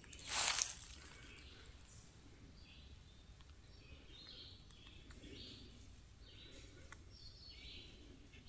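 Quiet woodland ambience with faint, repeated bird calls, and a single footstep crunching in dry leaf litter about half a second in.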